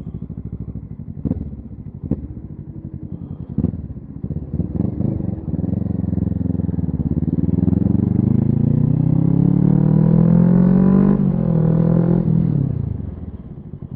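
2017 Kawasaki Z650's parallel-twin engine pulling under the rider, with a few sharp knocks in the first few seconds. From about five seconds in, the revs climb steadily and it gets louder, with a short break near eleven seconds like a gear change. The revs then drop away as the throttle closes near the end.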